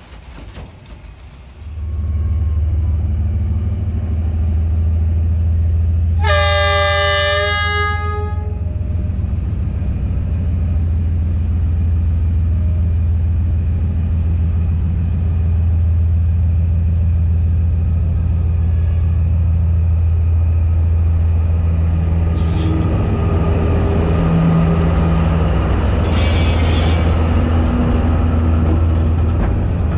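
Diesel locomotive hauling a freight train approaches and passes close by, its engine a steady deep drone. Several seconds in it sounds its horn once, for about two seconds. A short hiss comes near the end as the locomotive draws level.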